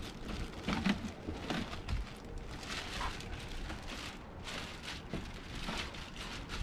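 Clear plastic bag around a large RC truck body shell crinkling and rustling as the wrapped shell is handled and lifted out of a cardboard box, in uneven crackly bursts.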